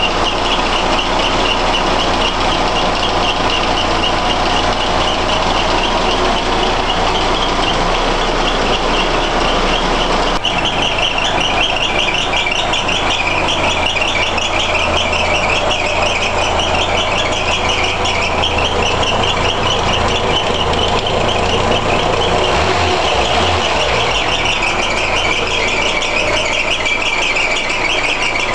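1977 Opel Manta engine idling steadily, heard close up under the open bonnet. The engine has just been revived after standing for years, on a new battery and fresh petrol.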